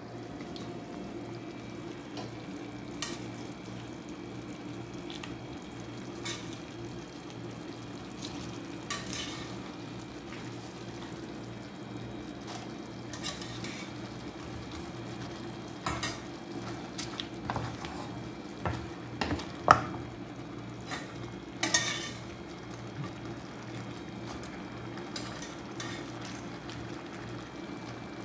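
Shrimp being stirred in a metal pan with a metal utensil, scraping and clinking against the pan while the shrimp sizzle, over a steady low hum. There is a run of louder clinks and knocks past the middle.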